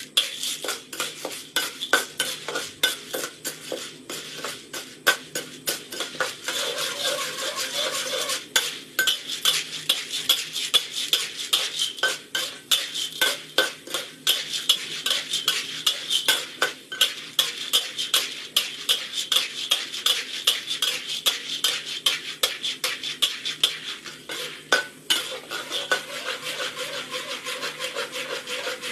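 Metal spatula scraping and stirring dry popcorn kernels around a steel wok, with many irregular clicks and rattles as the kernels and spatula hit the metal, over a steady hiss.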